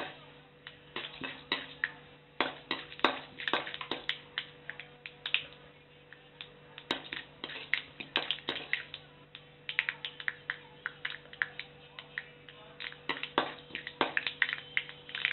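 Mustard seeds and dal spluttering in hot coconut oil in a kadai: irregular sharp pops and crackles, coming in busy clusters with quieter spells between, over a faint steady hum.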